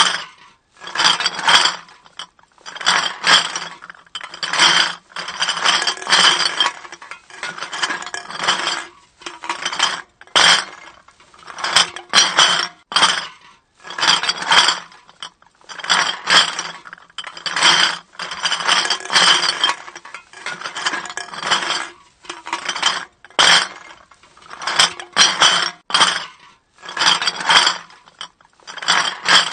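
Empty bottles clinking and rattling against one another in repeated clattering bursts, each lasting about a second, with short pauses between them.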